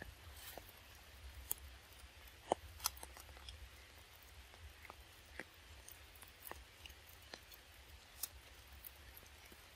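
Macaques biting and chewing ripe mango: faint, scattered wet clicks and ticks at irregular intervals, over a low steady rumble.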